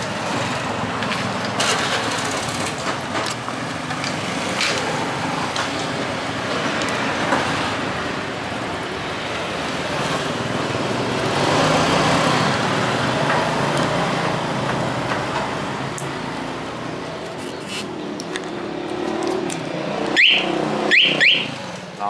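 Steady vehicle noise, then near the end three quick rising chirps from a motorcycle anti-theft alarm's siren, answering a press of its remote.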